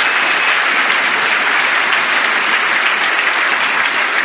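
Audience clapping steadily.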